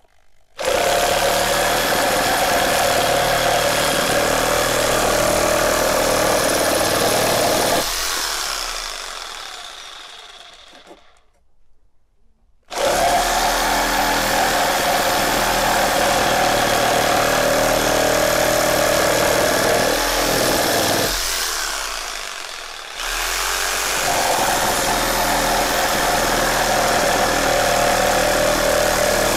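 Makita JR3050T corded reciprocating saw cutting through a 50×150 mm wooden board with a Bosch S 644 D blade, held into the cut by a constant 5 kg load. It starts about half a second in and runs steadily, then dies away to a stop about eight seconds in. It starts again about thirteen seconds in and drops out briefly around twenty-one seconds before running on.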